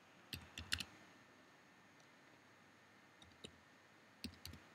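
Faint computer keyboard keystrokes typing in a number: a quick run of three clicks near the start, a single click in the middle, and three more close together near the end.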